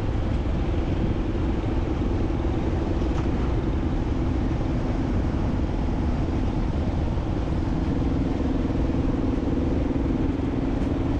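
Steady running noise of a moving road vehicle: an even engine drone over road noise, holding level throughout.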